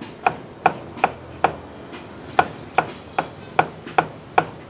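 Knife chopping on a wooden cutting board in a steady rhythm, about two and a half sharp strikes a second, with a short pause about a third of the way through.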